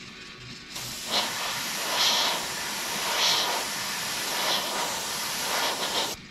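Airbrush spraying paint: a steady hiss of air starts about a second in and swells brighter about five times. It cuts off abruptly just before the end.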